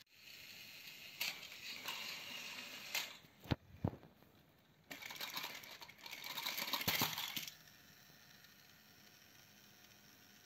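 Small electric motors of battery-powered plastic toy trains whirring on plastic track, with a few sharp plastic clacks as the trains knock and tumble, in two short runs.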